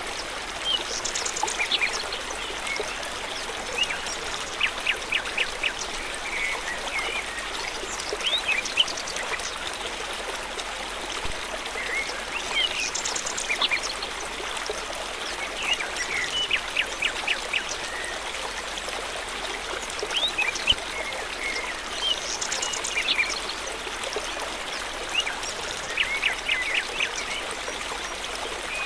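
Forest stream running steadily, with small birds chirping and trilling over it every few seconds.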